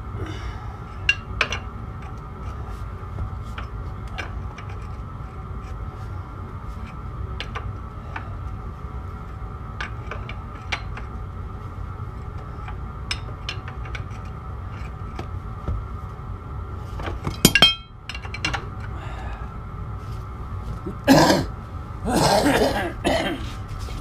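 Hand tools clinking and knocking against steel parts: scattered sharp clicks over a steady hum, with a quick cluster of clinks about two-thirds of the way in and louder, longer clatters near the end.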